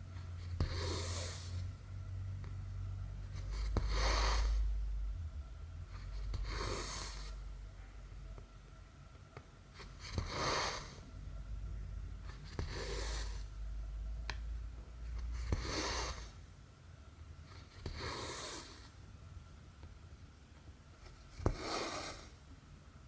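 Cotton embroidery thread being drawn through cross-stitch fabric, a short swish about every two and a half to three seconds, eight pulls in all, with a few small ticks of the needle between them.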